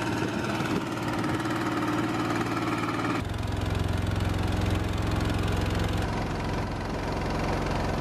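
Small outboard motor on a river boat running steadily at cruising speed. Its tone and pitch shift abruptly twice, about three seconds in and again about six seconds in.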